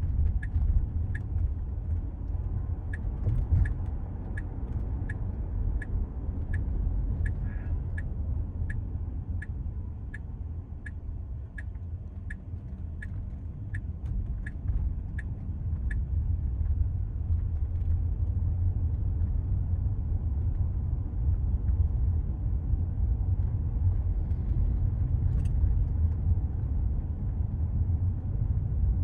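Cabin of a Tesla electric car in motion: a steady low rumble of tyre and road noise, with no engine sound. Over it, the turn-signal indicator ticks about one and a half times a second for the first half, then stops.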